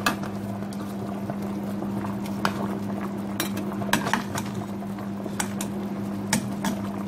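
Fish pepper soup simmering and bubbling in a metal pot, with a metal ladle clinking against the pot now and then, over a steady low hum.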